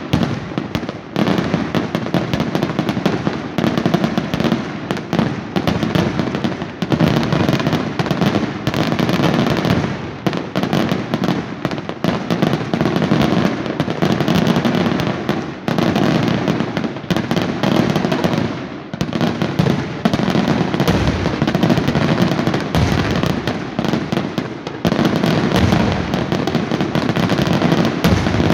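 Daytime fireworks display: a dense, almost unbroken run of loud bangs and crackling bursts from aerial shells and firecrackers, easing briefly a few times before picking up again.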